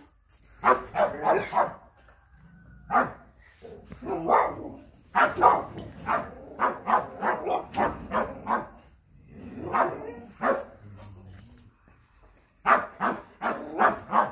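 American Staffordshire Terriers barking in volleys of short, sharp barks, several a second, with brief lulls between volleys.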